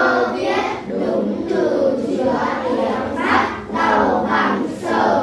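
A class of primary-school children reading aloud together in unison, a chant-like chorus of young voices.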